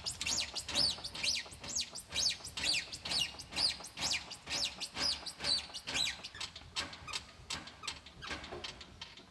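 Squeaking from the brake pedal and handbrake linkage of an AEC Routemaster as the brake pedal is pumped to discharge the pressure from the hydraulic brake system. There are about two short squeaks a second, each rising and falling in pitch, fading out about seven seconds in.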